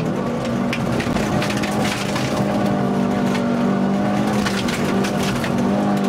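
Opel Corsa rally car heard from inside the cabin on a gravel stage: the engine runs at a nearly steady pitch while loose stones and gravel crackle and clatter against the underbody throughout.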